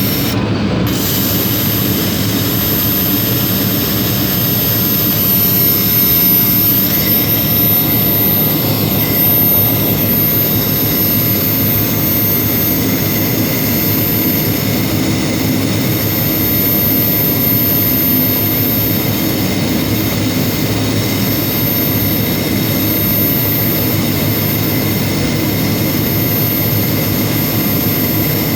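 Steady mechanical whir with a low hum from a CNC laser engraver running, with faint high whines gliding up and down a few seconds in.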